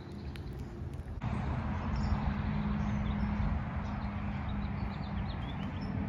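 Outdoor garden ambience: small birds chirping faintly over a steady low hum and background noise, the sound changing abruptly about a second in.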